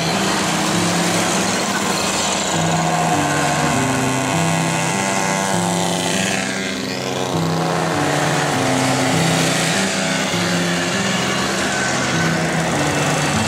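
Classic two-stroke mopeds riding past one after another, their small engines buzzing, with one sweeping past in pitch about halfway through. Music with a stepping bass line plays underneath.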